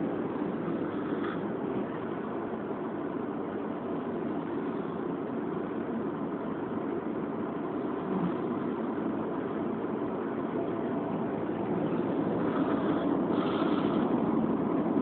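A sleeping man snoring: a steady low, rough rumble that grows a little louder near the end.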